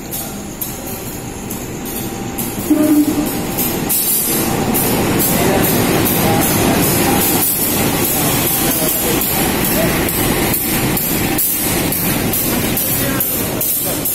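GE diesel-electric locomotive hauling a passenger train through the station, growing louder as it approaches and runs close past, then coaches rolling by with wheels clacking over the rail joints. A brief loud low tone sounds about three seconds in.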